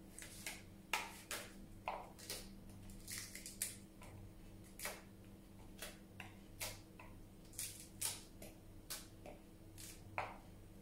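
Iceberg lettuce leaves being torn apart by hand, a crisp crackle with each tear, coming irregularly, a few every second. A faint steady hum underneath.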